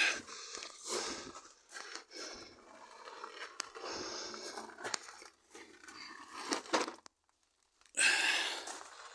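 Wheel nuts being undone and a car's road wheel taken off: irregular metallic clicks, knocks and scraping of tools and parts being handled. The sound drops out completely for about a second, then a louder scraping rush comes near the end.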